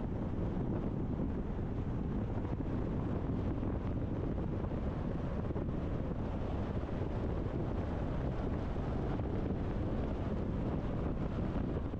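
Steady low rumble of wind and road noise from a car driving, with wind buffeting the microphone.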